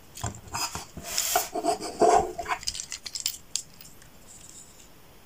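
Small plastic clicks and scrapes from a Transformers action figure as a small plastic wheel is handled and pressed back onto its leg. A brief pitched sound about two seconds in. Quieter after about three and a half seconds.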